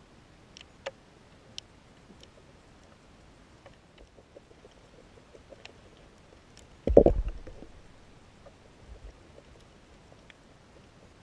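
Underwater sound at the camera: faint scattered clicks over a low hiss, and about seven seconds in a loud, low thump with a brief rumble, like something knocking against the camera housing.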